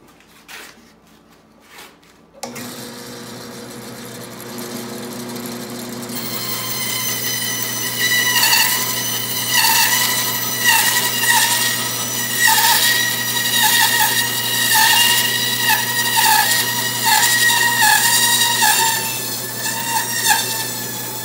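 King bandsaw: a few clicks, then the motor starts suddenly about two and a half seconds in and runs with a steady hum. From about six seconds in the blade cuts wood with a loud whine that dips in pitch again and again as the blade takes load.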